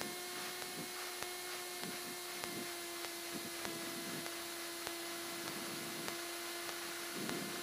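Cessna 172's engine at idle during the landing roll-out, a faint steady hum with hiss over it, and light irregular clicks.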